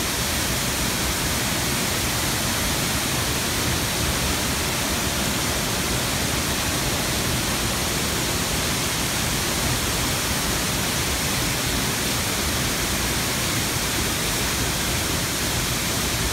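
Steady, loud rushing of a tall waterfall crashing into its plunge pool close by.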